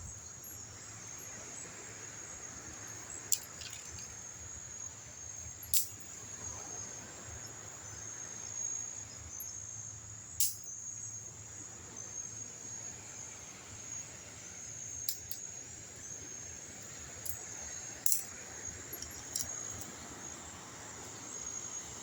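Crickets trilling steadily in a high, even chorus, with a few sharp clicks here and there.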